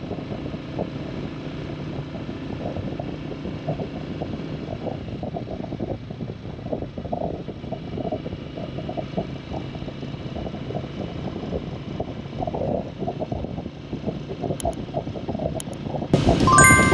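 Motorcycle engine running steadily while riding, with wind and road noise. Music comes in about a second before the end.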